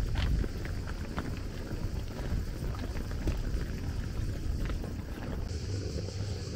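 Wind buffeting a handheld camera's microphone: a steady low rumble with scattered faint clicks. The sound changes character about five and a half seconds in.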